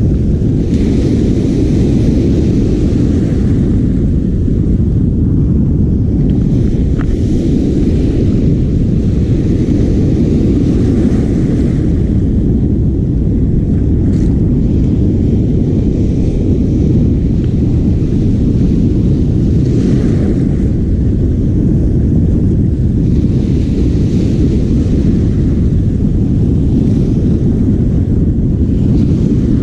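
Wind buffeting the microphone in a steady, loud low rumble.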